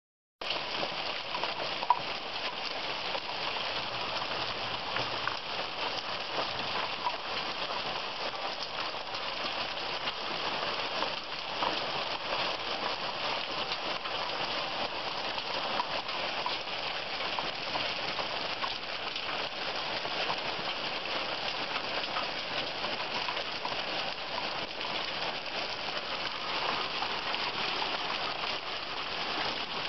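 Heavy rain mixed with hail falling steadily, a dense hiss of drops with scattered sharp ticks; one louder tick about two seconds in.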